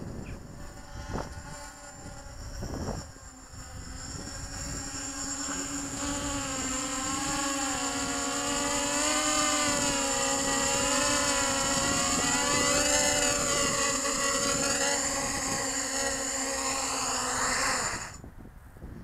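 Realacc GX210 FPV racing quadcopter's motors and propellers running, a steady hum with wavering higher whines that grows louder as the quad comes in close. The motors stop suddenly about eighteen seconds in.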